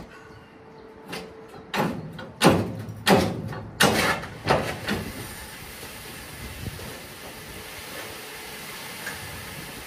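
Railway freight wagons of the Faccs hopper type: a quick run of about eight loud clanks over some four seconds, then a steady, even rumbling noise.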